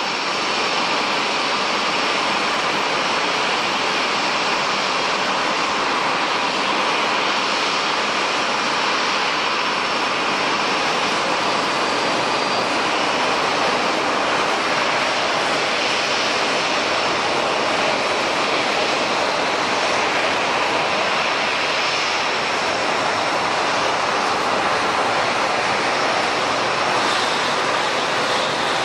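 Jet airliner engines running steadily: an even rushing noise with a faint high whine, holding the same level throughout.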